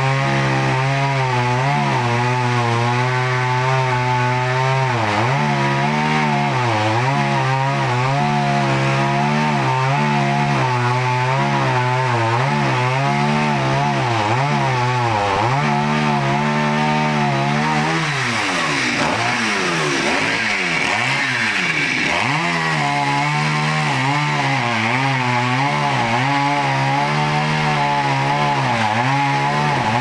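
Two-stroke chainsaw running at high revs while cutting larch wood, its pitch dipping and recovering every second or two as the chain loads up in the cut. A little past the middle the revs drop and swing up and down several times, then climb back to a steady cutting pitch.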